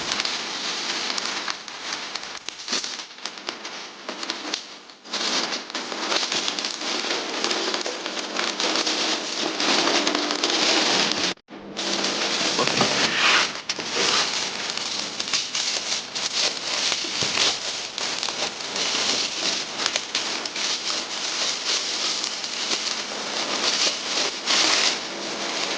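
Plastic and paper packaging crinkling and rustling as a parcel is unwrapped: a dense, busy crackle, broken by a brief cut about halfway through.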